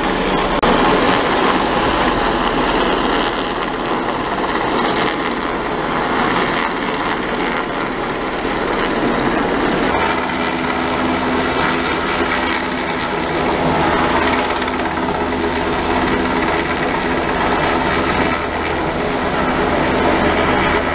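A US Coast Guard MH-60 Jayhawk helicopter hovering close overhead. Its rotor and turbines make a loud, steady drone, with a low hum of evenly spaced tones that grows more distinct about halfway through.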